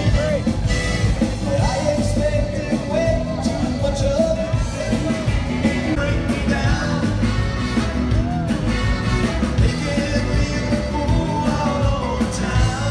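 Live mariachi band playing, with violins, trumpets and guitars, while a man sings a melody over it.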